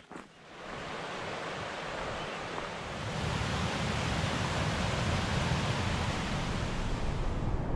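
A steady rushing noise that swells in about half a second in and grows louder about three seconds in, with a low rumble underneath.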